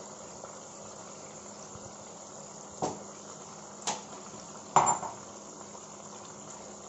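Chicken pieces frying in oil in a karahi with a steady sizzle as a wet green chilli and onion paste goes in. Three knocks of a utensil against the pan come about three, four and five seconds in, the last the loudest.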